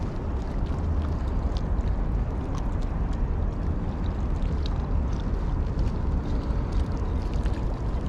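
Wind buffeting the microphone: a steady low rumble with faint short ticks above it.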